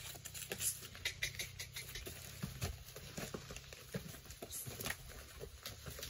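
Irregular light taps and crunches of a horse's hooves and a person's footsteps on dry dirt and debris as the horse is led off.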